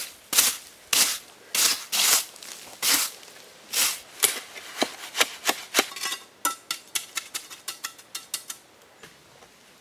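A stiff hand brush sweeping grit off the tops of concrete blocks in about seven short rasping strokes. Then a steel trowel scraping and tapping mortar onto the block tops in a run of quick sharp clicks, faster toward the end.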